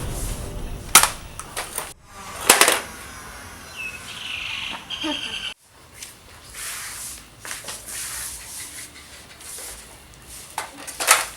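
Nerf blasters firing: sharp pops scattered through, a loud pair about two and a half seconds in and another near the end, with faint voices between.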